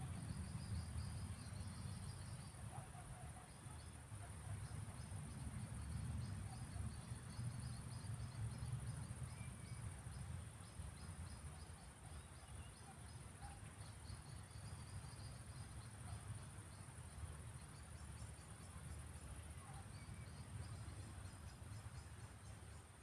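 Countryside evening ambience: crickets and other insects keep up a steady high trill, with runs of rapid pulsed chirping coming and going, over a low, uneven rumble.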